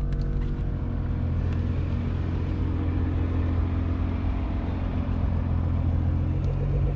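Air Lift air-suspension compressor on a Nissan GT-R R35 running with a steady low hum, filling the air tank after the car has been raised to full height.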